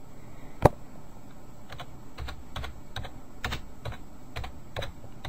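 Computer keyboard being typed on: a string of irregular keystrokes entering a short search phrase, a few keys a second, after a single sharper click about half a second in.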